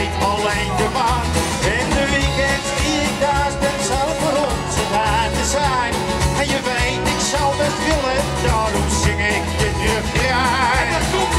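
Live band playing a song through a PA system: a singer over acoustic guitar, electric bass and drums, with wavering held sung notes and a steady bass and drum beat.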